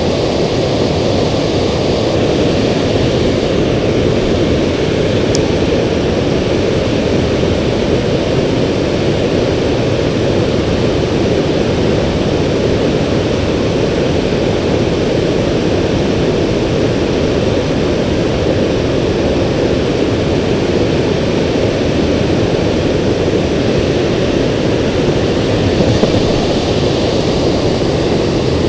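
Steady rush of water pouring over a river spillway: a loud, even, deep noise that holds without change.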